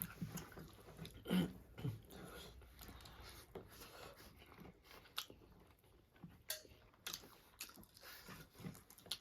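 Eating sounds: chewing and biting food, with small scattered mouth smacks and clicks.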